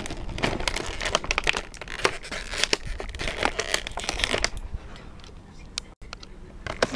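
Plastic toy packaging crinkling and crackling as small toy accessories are worked out of it, busiest for the first four seconds or so, then sparser and quieter.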